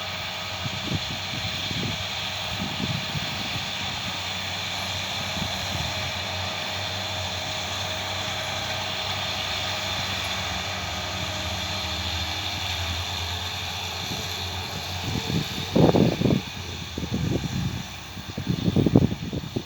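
A New Holland T6 tractor's diesel engine and its round baler running steadily while baling hay, a continuous mechanical drone. Irregular low rumbles come in over the last few seconds.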